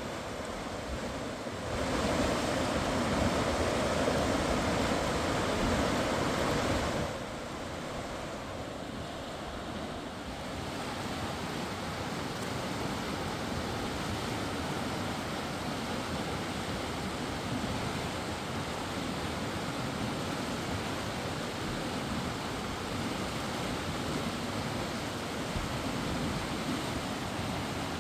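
Rushing mountain river water, a steady noise without tones. It jumps louder about two seconds in and drops back suddenly at about seven seconds, then runs on evenly.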